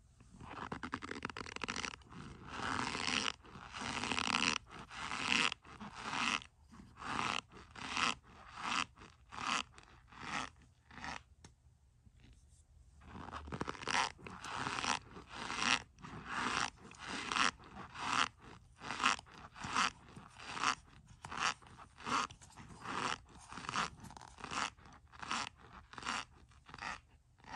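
A red-handled utensil digging into a cup packed with soap, making repeated crunching scrapes about once a second, with a short pause about halfway through.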